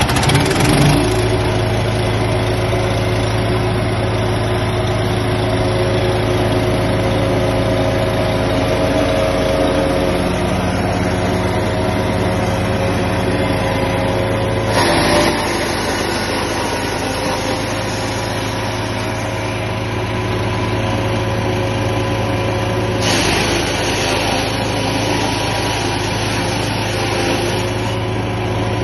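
Wood chipper's engine running steadily, briefly growing louder and harsher about halfway through and again later on.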